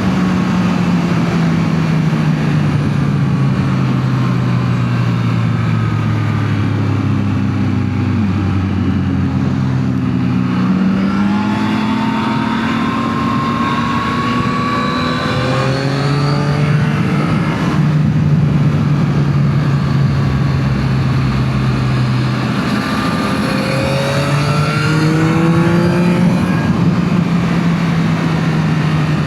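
Yamaha MT-09 SP's 890 cc inline three-cylinder engine through its stock exhaust, heard while riding. The engine note falls over roughly the first ten seconds, then climbs and holds steady, and climbs again near the end.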